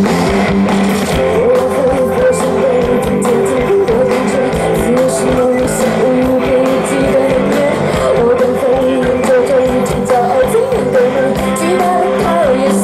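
Music: a song with a singing voice over guitar, playing steadily.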